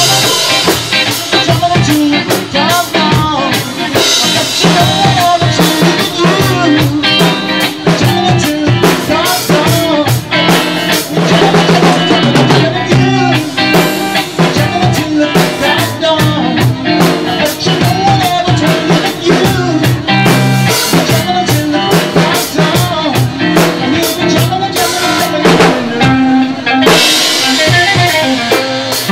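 A rock band jamming an instrumental passage: a drum kit keeps a steady beat with snare, rimshots and bass drum under bass and guitar lines that bend in pitch.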